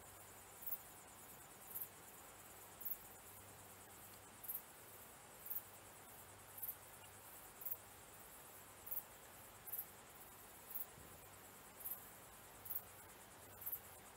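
Crickets chirping: short high-pitched chirps, about one a second, over a faint steady high trill.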